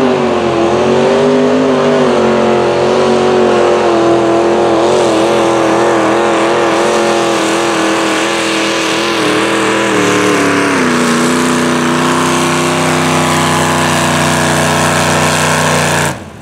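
Small-block V8 of a mini modified pulling tractor running wide open while it drags a weight-transfer sled. The engine note wavers slightly, steps down in pitch about two-thirds of the way through as the load builds, and cuts off abruptly near the end.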